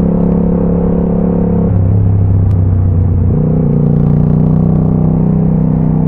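Motorcycle engine running at low road speed, a steady drone whose pitch drops about two seconds in and rises again a second and a half later.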